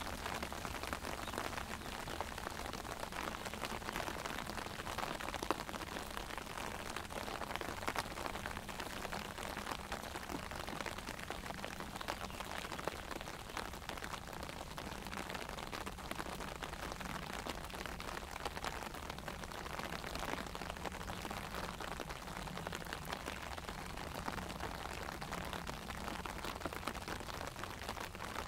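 Rain falling on an umbrella: a steady, dense run of small drop hits with an occasional louder single drop.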